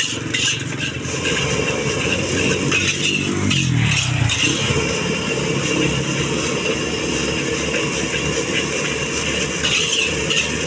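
Steady roar of a gas wok burner under frying rice, with a metal spatula stirring and scraping in a steel wok. About four seconds in, a passing engine drops in pitch.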